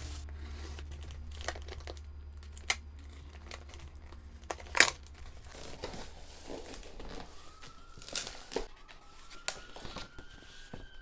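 Plastic wrap crinkling as a cardboard shipping box is handled and opened, in scattered crackles and rustles with one sharp, loud snap about five seconds in.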